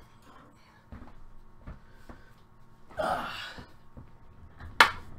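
Faint knocks of handling at a desk, a short breathy rush about three seconds in, like a sniff or sharp exhale, and a single sharp click near the end.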